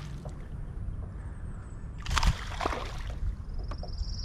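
Water sloshing and lapping against a small fishing boat's hull over a low wind rumble, with a brief splashy burst about two seconds in. Near the end a high, fast whirring starts, like a fishing reel being cranked to bring in a hooked crappie.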